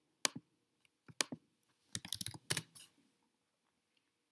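Clicking of a computer mouse and keyboard: a few single clicks in the first second and a half, then a quick run of clicks around the two-second mark, and one faint click near the end.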